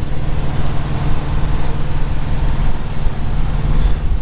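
Steady low rumble of a diesel engine idling close by.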